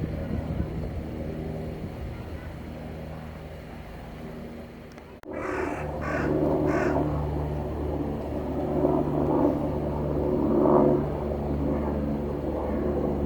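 A steady low motor-like hum. About five seconds in, the sound cuts abruptly, and three short harsh calls follow about half a second apart over a louder, steady hum.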